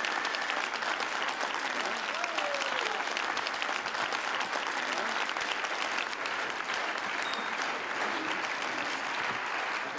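Large theatre audience applauding: dense, steady clapping from many hands, with a few voices calling out in the first seconds.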